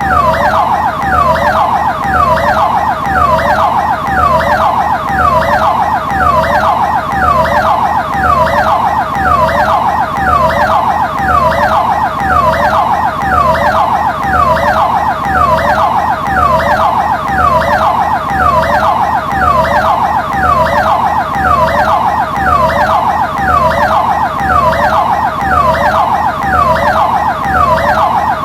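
Ambulance siren sounding loudly in a fast repeating cycle, each cycle a quick falling sweep in pitch, about one and a half sweeps a second.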